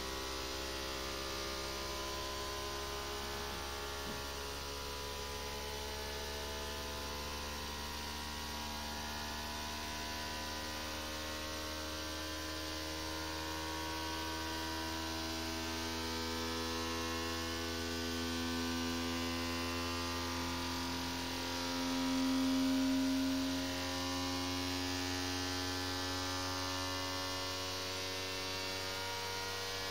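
Flashforge Adventurer 5M Pro 3D printer's stepper motors running, a whine of several tones that slowly drift up and down in pitch over a steady low hum. One tone swells louder about two-thirds of the way through.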